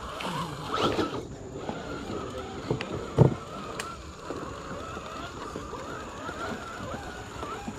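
Electric drive motor and gears of a 1/10-scale RC rock crawler whining, the pitch wavering as the throttle is worked, with a few knocks as the truck hits the obstacle; the loudest knock comes about three seconds in.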